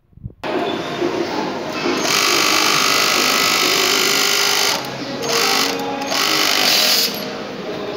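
ViBeMac V364.1 flat bed chainstitch unit sewing stretch denim at speed, running in spells with short stops about five and six seconds in. The sound starts suddenly about half a second in, and machine noise from the sewing floor carries on under it.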